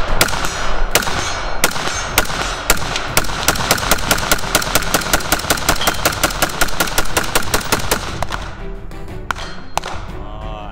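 Steyr AUG A3 rifle in .223 Rem fired repeatedly. A few spaced shots come first, then a fast string of about four or five shots a second lasting several seconds, then two more shots, all over background music.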